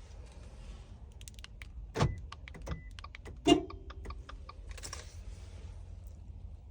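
Handling noise: a run of small sharp clicks with two louder knocks about a second and a half apart, the second the loudest with a short ring after it, and a brief hiss before and after.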